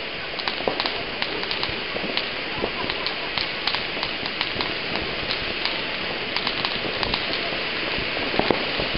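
Ground fountain firework spraying sparks: a steady hiss with many small crackles and pops scattered through it.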